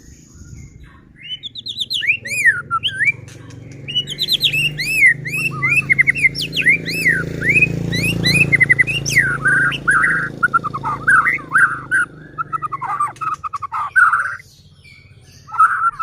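White-rumped shama (murai batu) singing a fast, varied run of rising and falling whistled notes and trills, with a brief pause near the end, over a low background rumble.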